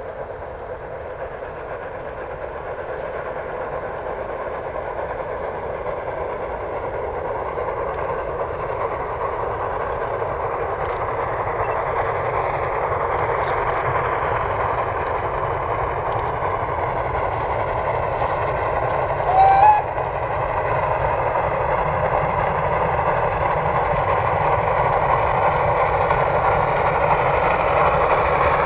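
Narrow-gauge steam train running, its sound growing steadily louder as it approaches. About nineteen seconds in there is a brief, louder pitched sound.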